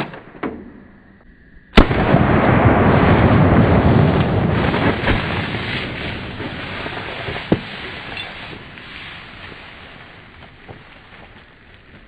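A very loud sharp bang about two seconds in as a two-liter soda bottle is hit and bursts. A long rushing spray of pressurized soda and falling liquid follows and slowly fades.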